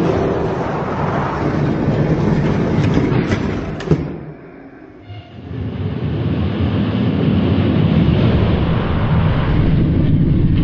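Hot Wheels diecast monster trucks rolling down a long plastic drag track: a steady rattling rumble. It breaks off after a sharp click about four seconds in and resumes a second or so later.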